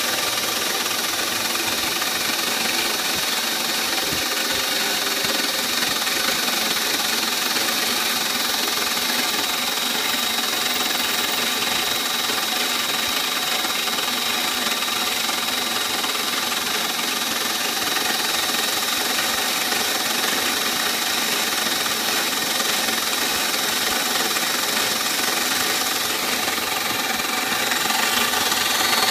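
CNC milling machine's end mill cutting a clear plastic block in a clean-up pass after the rough cut: a steady high spindle whine over constant cutting noise, getting slightly louder near the end.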